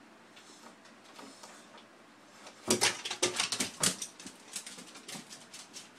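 A puppy's paws and claws clattering down stair steps: a quick run of loud knocks about two and a half seconds in, then lighter claw ticks. Faint ticking comes before the knocks.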